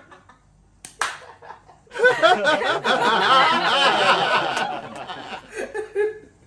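Laughter breaking out about two seconds in and lasting nearly three seconds before trailing off into quieter giggles, after two short sharp clicks about a second in.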